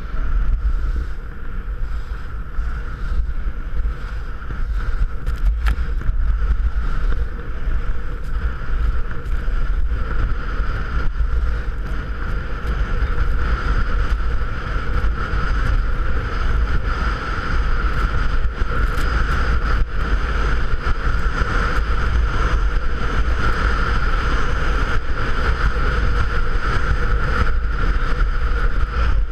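Heavy wind rumble on an action camera's microphone while skiing fast downhill, with a steady hiss of skis running over packed snow that grows louder in the second half.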